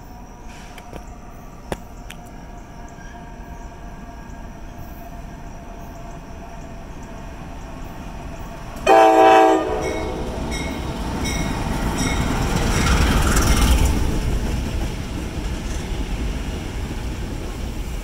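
Three diesel locomotives running light, faint as they approach, then one short, loud blast of the air horn about nine seconds in. Their engine and wheel rumble then grows loud as they pass beneath, peaking a few seconds after the horn and staying fairly loud to the end.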